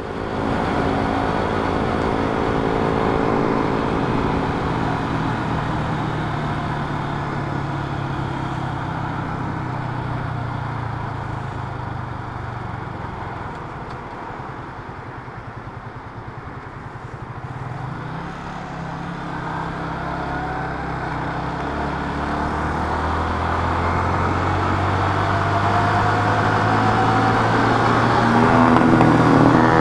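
Motorcycle engine heard from the rider's seat over wind rush. It eases off to its quietest about halfway through while slowing for a curve, then pulls steadily harder and louder with rising pitch through the last third.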